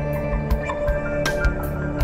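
Background music: held tones with light percussive hits.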